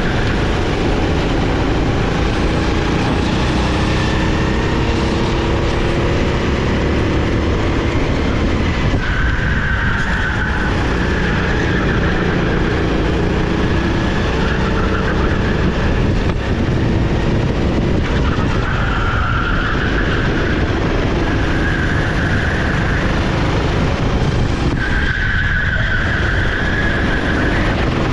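SR4 390cc rental kart's single-cylinder four-stroke engine running at racing speed, its pitch rising and falling repeatedly with throttle.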